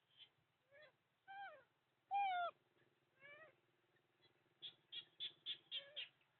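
A series of high-pitched animal calls: single drawn-out calls that bend down in pitch, the loudest about two seconds in, then a quick run of about six short calls near the end.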